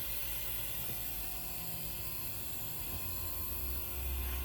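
Steady hum and hiss of a powered-up CNC vertical machining center in a machine shop, with a few steady tones and a constant high whine. The low rumble grows louder near the end.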